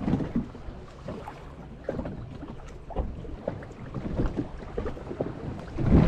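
Wind buffeting the microphone on a small boat at sea, with water slapping the hull and scattered light knocks. There is a louder gust or surge about six seconds in.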